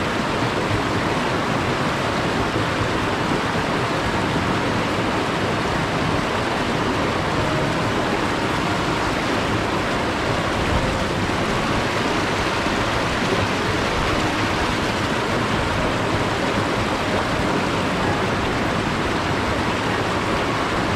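Mountain stream water rushing steadily, an even, unbroken noise of flowing water.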